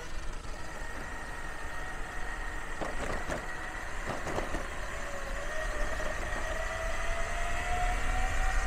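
Electric mountainboard's steel helical gear drive (7:1 reduction) whining as it rides, the whine dipping about five seconds in and then slowly climbing, over a low rumble of the wheels on the road. The wheels clatter over brick paving and a rail track about three and four seconds in.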